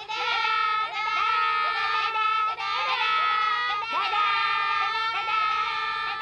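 Children's gospel choir singing a Christmas song, voices holding long notes while other voices slide and break in between.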